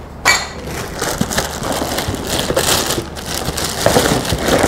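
Plastic wrapping crinkling and rustling with small knocks of handling in a cardboard box, as a boxed power tool is taken out of its packaging.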